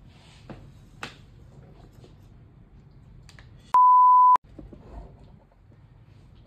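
A single steady, high, pure-tone censor bleep, a little over half a second long, that cuts in and out abruptly about four seconds in while all other sound drops out. Around it there is only quiet room sound, with two faint clicks in the first second.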